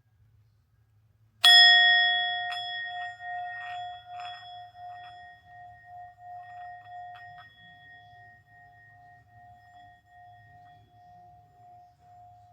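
Small hammered Tibetan singing bowl struck once about a second and a half in, then ringing on a clear tone with higher overtones and slowly fading, its level wavering in a steady pulse.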